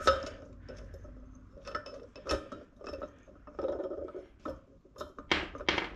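Metal clicks and scraping as a bearing puller is fitted and worked into the bearing of a motorcycle rear wheel hub, with a couple of sharper clinks near the end.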